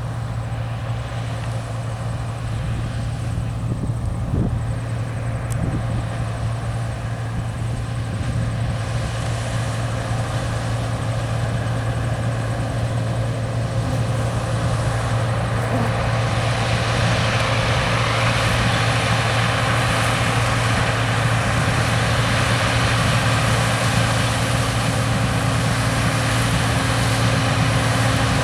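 John Deere 9760 STS combine harvester running at work: a steady low engine drone with a broad rushing noise that grows louder from about halfway through.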